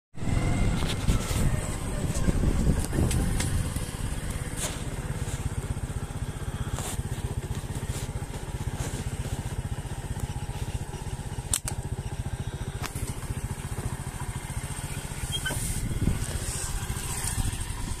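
An engine running steadily nearby, a low, even rumble, with a sharp click about two-thirds of the way through.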